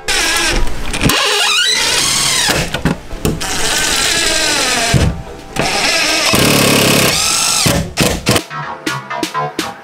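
Power drill driving screws into a wooden kitchen cabinet, running in several bursts with its whine rising and falling in pitch. Background music with a steady beat comes in near the end.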